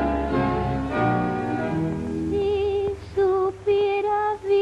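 A tango song with instrumental accompaniment, heard as a brief instrumental phrase followed, from about halfway, by a woman's voice singing long held notes with vibrato in an operatic style, with short breaks between them.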